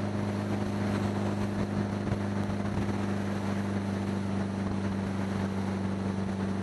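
1975 Honda Gold Wing's flat-four engine running at a steady cruising speed, a constant even drone, mixed with wind noise on a helmet-mounted microphone with a furry windscreen; awfully noisy.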